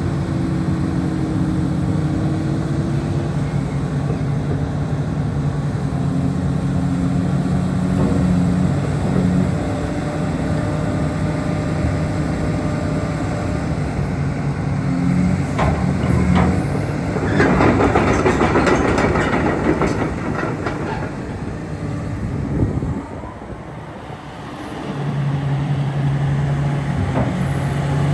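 Komatsu PC360LC-11 excavator's six-cylinder diesel engine running steadily. From about 16 to 21 seconds in there is a stretch of clattering with many clicks. The engine sound dips briefly around 23 seconds and then comes back steady near the end.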